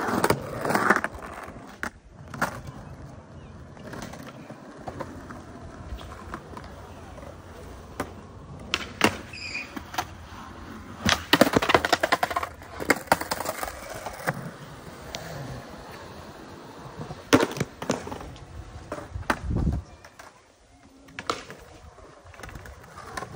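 Skateboard wheels rolling on concrete, with repeated sharp clacks and clatter of the board hitting the ground. The busiest clattering comes about halfway through.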